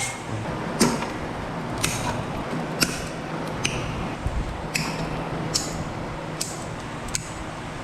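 Wire cutters snipping through wires one after another, a sharp click about once a second, over a low steady hum.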